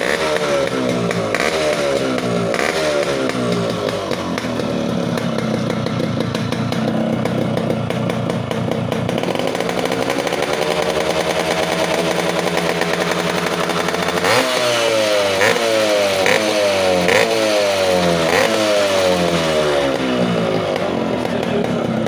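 Yamaha RX135 two-stroke single-cylinder engine running through a silencer packed with glass wool, revved in quick throttle blips that fall back each time. Midway it settles to a steady idle, then climbs to a held higher speed, drops suddenly, and goes into a run of blips about one a second before easing back.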